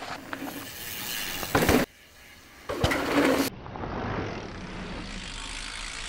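Mountain bike ridden hard on a dirt trail: tyres rolling and crunching over dirt, the freewheel hub ticking, and the chain and frame clattering. There are two loud bursts of tyre and trail noise, about a second and a half in and about three seconds in, with a short lull between them, then a steadier, duller rolling noise for the rest.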